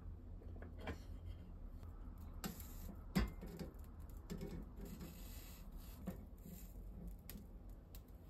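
Soft kitchen handling sounds of wooden utensils working at a rice ball on a wire grill rack: light taps, scrapes and clicks, with one sharp knock about three seconds in. A steady low hum runs underneath.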